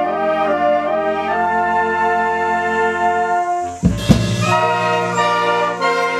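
Amateur wind band playing: saxophones, clarinets and flutes with brass hold sustained chords, then about four seconds in two sharp percussive strokes open a new phrase of shorter, detached notes.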